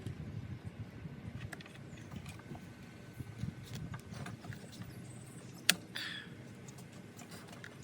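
Hand-tool and parts handling on the engine while new Vanos solenoids go in: scattered light mechanical clicks, with one sharp click about two-thirds of the way through followed by a brief rustle.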